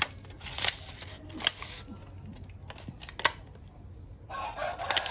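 A handful of sharp clicks, irregularly spaced, with a short stretch of rustling noise near the end.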